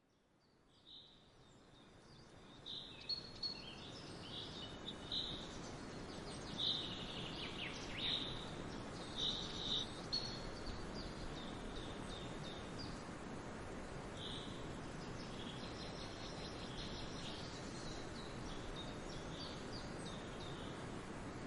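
Songbirds chirping in short, high calls over a steady background hiss. The sound fades in over the first few seconds, and the chirps come thickest in the first ten seconds, then thin out.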